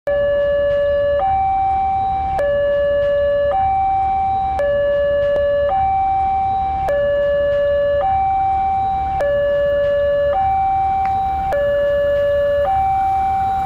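Two-tone hi-lo siren alternating steadily between a lower and a higher note, each held a little over a second, with a low rumble underneath.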